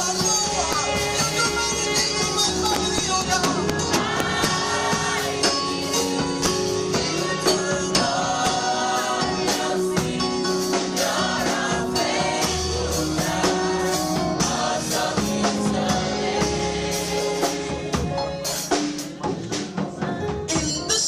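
Gospel worship music: voices singing over a band, with a tambourine keeping a steady beat. The music thins out a little near the end.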